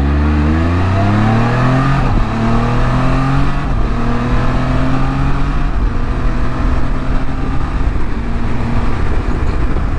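2019 Can-Am Spyder RT's Rotax 1330 inline-triple engine under hard acceleration, its throttle sharpened by a Pedal Commander in sport mode. The pitch climbs fast, drops back at upshifts about two and about four seconds in, then keeps rising more slowly at highway speed over the wind rush.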